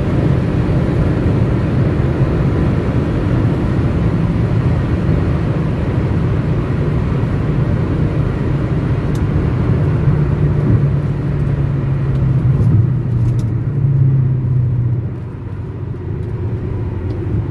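Cabin noise of a Chevrolet Corsa 1.4 Econoflex hatchback driven fast on the highway: a steady low engine drone with road and wind noise. It turns quieter about fifteen seconds in.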